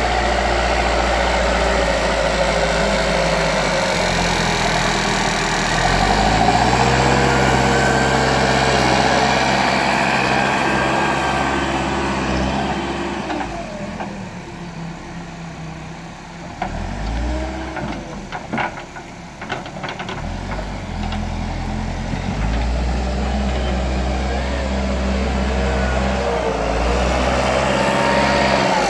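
Backhoe loader's diesel engine working, its pitch rising and falling in repeated sweeps as the machine takes load. Partway through it falls to a quieter, lower run with a few sharp clanks, then picks up again.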